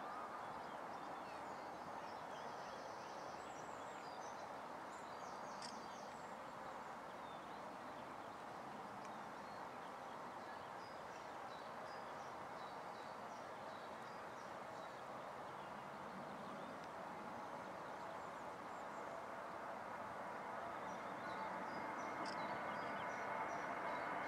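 Distant jet engine noise of an Airbus A321-231's IAE V2500 turbofans on the takeoff roll: a faint steady rush that grows louder with a whining tone in the last few seconds as the airliner approaches and rotates. A few small bird chirps sound over it.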